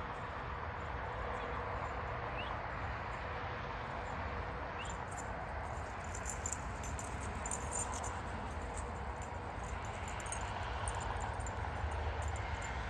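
Early-morning rural outdoor ambience: a steady low rumble and hiss of distant background noise, with two short rising chirps a couple of seconds apart and faint scattered high ticking.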